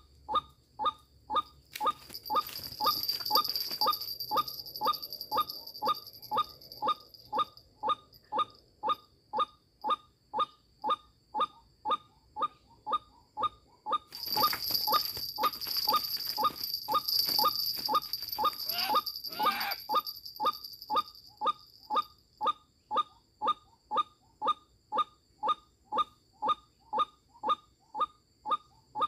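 A bird calling one short, sharp note over and over, a little more than twice a second, at a very even pace. A high, steady buzz swells in twice behind it.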